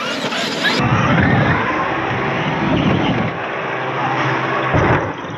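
Traxxas X-Maxx RC monster truck running on a dirt track: its brushless electric motor whines, rising and falling in pitch as the throttle changes, over a rush of tyre and wind noise. A thump of the truck landing comes near the end.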